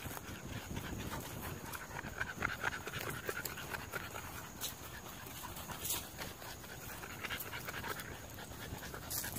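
American bully puppy panting rapidly and steadily.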